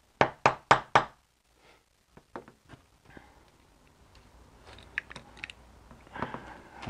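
Sharp metal taps, about four a second for the first second, as a new shifter bushing is tapped down into its seat in the BMW E46 shifter bearing with a screwdriver. After that come scattered faint clicks and small knocks of the metal shift-lever parts being handled.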